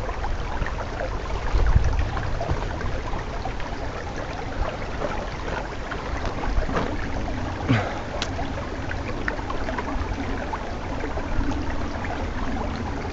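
Shallow stream running steadily over its bed, with a fluctuating low rumble under the water noise and a few small clicks scattered through it.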